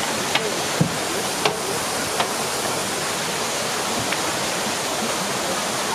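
Steady rush of running water, with a few light clicks.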